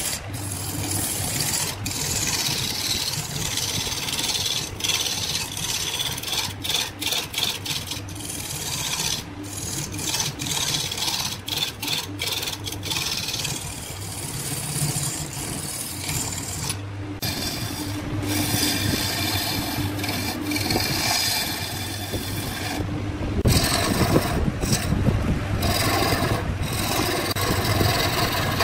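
Wood lathe spinning a wooden blank while a flat steel turning tool cuts it: a continuous rasping scrape of wood being shaved, over a steady low hum, broken by brief gaps where the tool comes off the wood. About 23 seconds in the cutting grows louder and heavier.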